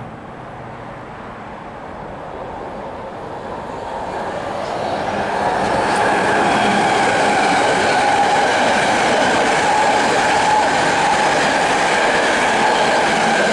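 BART train passing overhead on the elevated track: the noise of its wheels builds over the first five or six seconds, then holds loud with a steady high-pitched whine.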